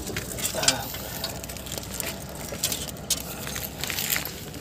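Irregular crackling, scraping and small clicks of hands working a handbrake cable up through a van's underbody, close to the microphone.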